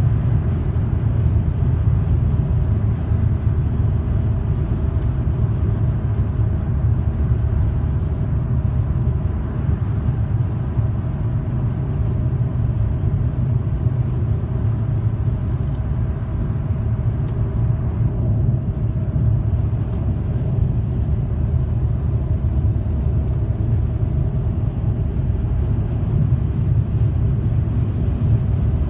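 Steady low rumble of a car cruising at highway speed, heard inside the cabin: tyre and engine noise.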